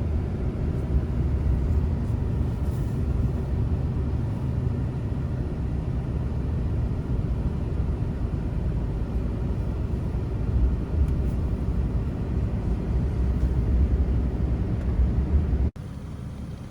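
Steady low rumble of a vehicle in motion, cutting suddenly to a quieter rumble about a second before the end.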